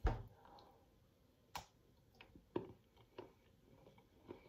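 A bite snapping off a piece of a square of 71% dark chocolate, then quiet chewing with a sharp click about a second and a half in and scattered small mouth clicks after it.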